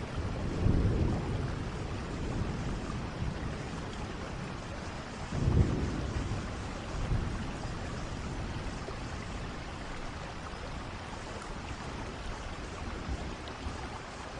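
Steady rain falling, with low rumbles of distant thunder, the strongest rolling in about five and a half seconds in.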